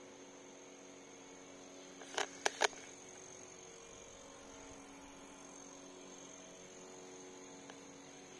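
A steady electrical hum of several held tones with a thin high whine above it, and three short sharp clicks a little after two seconds in.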